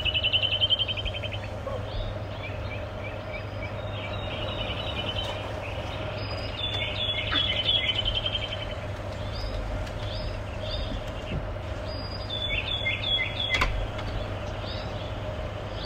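Small songbirds chirping and trilling in the trees, several calls overlapping, with fast rattling trills near the start and about halfway through. A steady low hum runs underneath.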